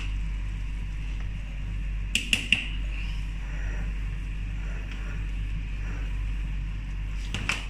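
Metal ladle stirring rice in a large metal cooking pot, with three sharp clinks against the pot about two seconds in and two more near the end, over a steady low hum.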